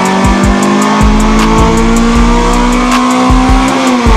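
Honda CRX's four-cylinder engine revving under load on a chassis dyno. Its pitch climbs slowly and steadily, then falls away near the end as the throttle is released.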